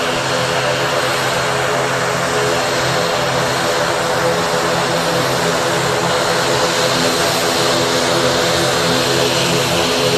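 ATR 72 turboprop airliner taxiing with both engines running: a steady propeller drone with a hissing whine above it, growing slightly louder as it approaches.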